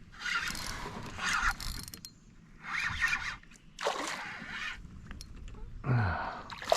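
Spinning or casting reel being cranked in about four spurts, its gears whirring as line is wound in.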